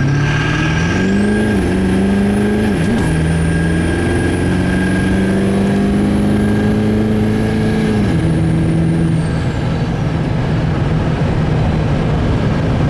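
Duramax V8 turbodiesel pickup accelerating hard, with its newly installed S366 turbocharger whistling. A high whistle rises about a second in and holds steady while the engine note dips twice and then climbs. Near the end, as the throttle comes off, the engine note drops and the whistle falls away.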